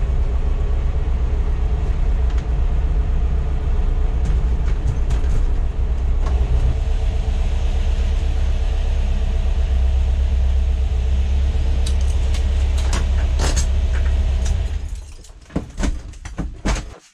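VW air-cooled 2332 cc stroker flat-four with dual Weber IDF 44 carburettors running steadily, heard from inside the cab of a Type 2 split-window bus. About fifteen seconds in it is switched off, leaving a few short clicks and knocks.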